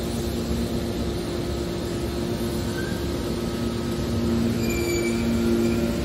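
Hydraulic scrap metal baler running: a steady drone of its electric motor and hydraulic pump, with a low two-note hum over a rumble. A few brief high squeals join in near the end.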